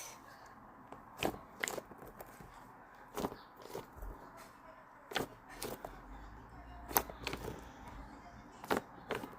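Faint handling noises: scattered light taps and clicks, about six over several seconds at irregular intervals, as a squishy toy and its packaging are handled.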